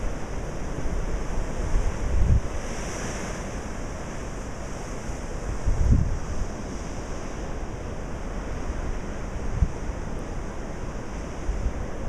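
Storm surf breaking along a seawall, a steady wash of heavy waves, with wind buffeting the microphone in three low rumbling gusts.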